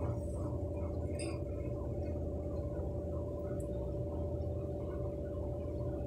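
Steady machine hum with a constant mid-pitched whine and a low rumble underneath, unchanging throughout. A brief, faint high-pitched sound comes about a second in.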